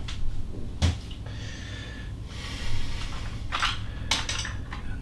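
Handling sounds of a plastic toy garbage truck with a metal cab as it is moved and picked up off a table: a sharp knock a little under a second in, a short rasping scrape, then a couple of lighter clicks near the end.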